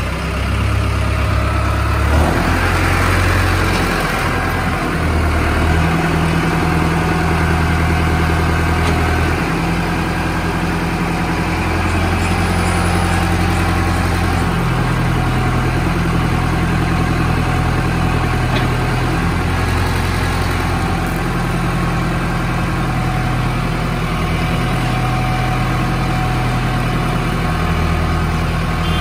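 Mahindra Arjun NOVO 4x4 tractor's diesel engine running steadily, its pitch shifting up and down a little every few seconds as the engine speed changes.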